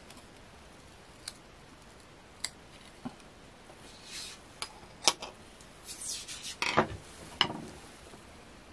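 Plastic parts of a small diaphragm air-assist pump clicking and clattering as the pump is taken apart by hand: scattered light clicks and taps, then a denser burst of handling noise about six to seven and a half seconds in.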